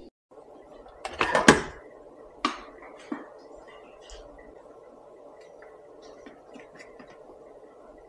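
Handling noises in a kitchen: a short rustling clatter about a second in, then two sharp knocks, then faint small clicks over a steady room hum.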